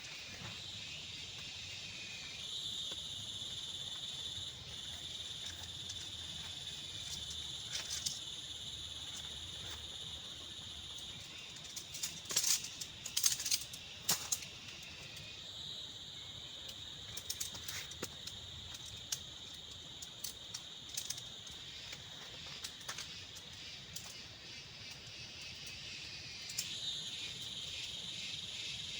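Insects chirring in a steady high-pitched drone that starts a couple of seconds in and shifts a few times, with a scatter of sharp clicks or knocks about halfway through.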